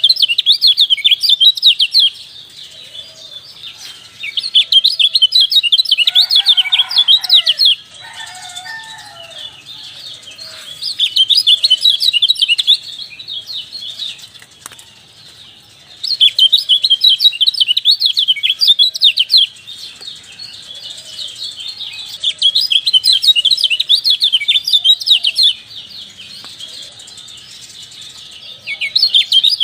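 Kecial white-eye song: loud bouts of rapid, high chirping a few seconds long, about five times, with softer chirping between them. A lower, falling call sounds briefly around a quarter of the way through.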